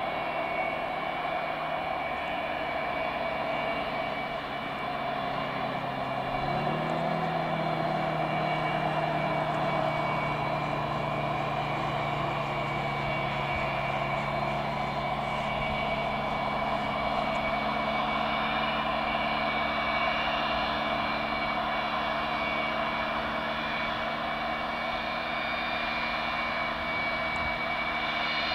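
Antonov An-225 Mriya's six D-18T turbofans running at taxi power: a steady, many-toned whine over a hum. About six seconds in, the low hum rises a little in pitch and then holds.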